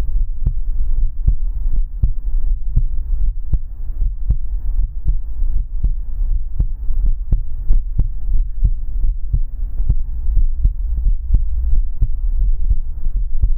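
A human heartbeat, heard close up as a steady low thumping with light clicks on each beat.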